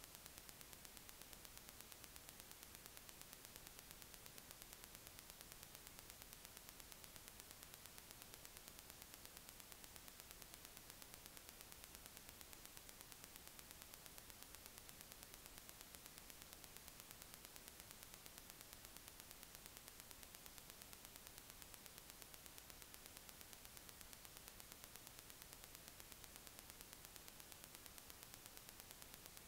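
Near silence: a faint, steady hiss of the recording's noise floor.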